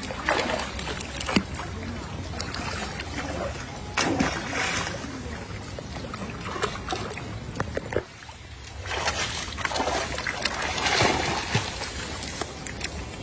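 Water splashing and sloshing as monkeys jump into the shallow lake edge and swim, in surges near the start, about four seconds in and again around nine to eleven seconds.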